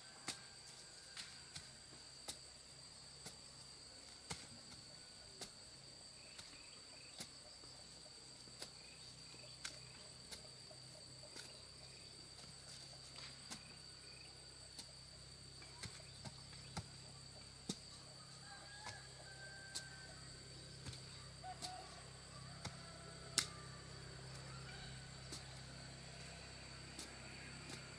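A hand digging tool striking and chopping into hard ground about once a second, with one louder strike late on, over a steady high-pitched insect drone.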